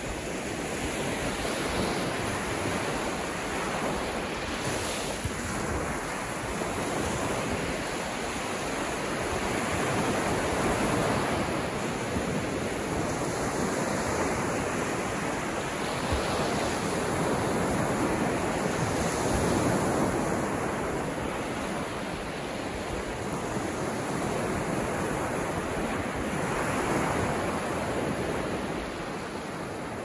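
Small, calm waves breaking and washing up on a sandy beach: a continuous rush of surf that swells and eases slowly.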